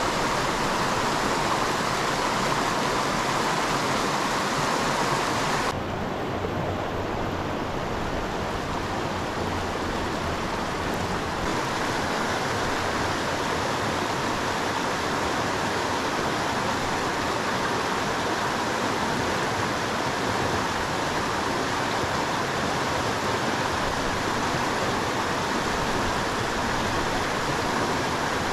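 A small mountain creek's water rushing steadily over rocks. Its tone changes abruptly about six seconds in and again near eleven seconds.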